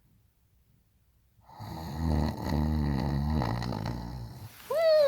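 A woman fake snoring: after a second and a half of near silence, a low rattling snore lasts about three seconds. Near the end, a long, high whine falls slowly in pitch.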